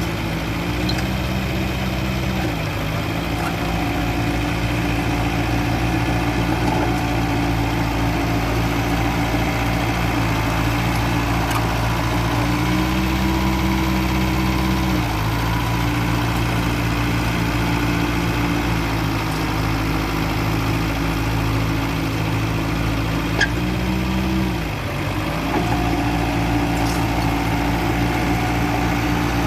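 Mitsubishi BD2e bulldozer's diesel engine running steadily during levelling work. Three times its note rises for about two seconds and then settles back.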